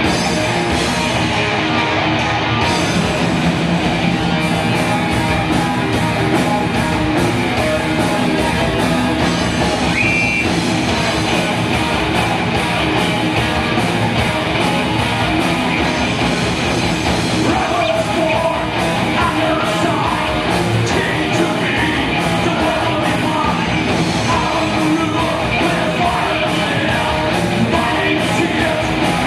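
Heavy metal band playing live: distorted electric guitars and drums, with a voice singing.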